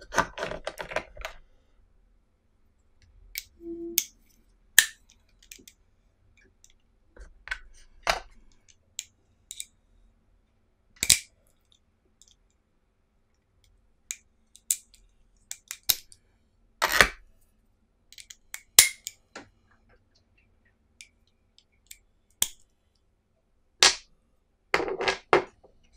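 Scattered sharp clicks and knocks of steel screwdriver bits and a plastic driver handle being lifted out of and set back into a moulded plastic case, with quiet gaps between. A brief rustle at the start.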